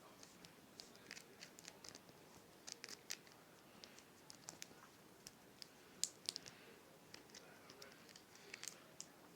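Wacky Tracks plastic snap-link fidget chain being bent and twisted, giving soft, irregular clicks as the links snap between positions, with one sharper click about six seconds in.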